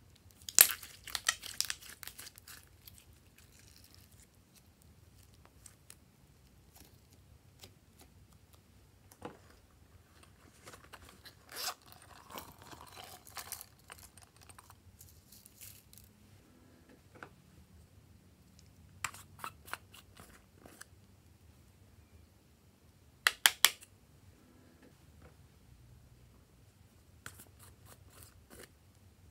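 Hands handling small plastic toys and containers over trays of slime: bursts of crinkly crackling and clicking. The loudest burst comes about a second in, another around the middle, and a quick run of sharp clicks comes near the end.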